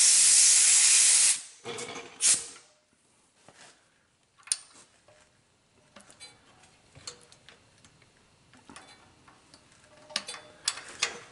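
Compressed air at about 50 psi hissing loudly from an air-hose coupler as it is pushed onto the compression-tester fitting, cutting off after about a second and a half, with a second short hiss about two seconds in. After that only faint clicks are heard as the valves are pressed by hand, with no air heard escaping.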